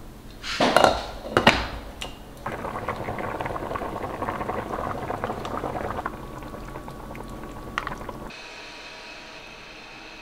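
Broth with cabbage rolls simmering in a pot, a steady fine bubbling, after two loud clatters in the first two seconds. About eight seconds in it changes abruptly to a steady hum.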